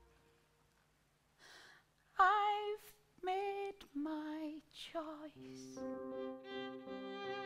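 A woman's voice singing a few long, wavering held notes with no accompaniment, after a short near-silent pause. About five seconds in, held instrumental chords come in underneath.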